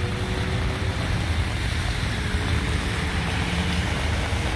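Vehicle engines running amid a steady wash of rain and water noise from a flooded, wet road, over a low rumble with a faint steady hum.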